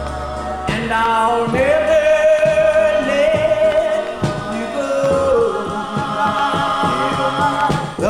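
Vocal group singing on a 45 rpm record, voices in harmony holding long, gliding notes over the backing music.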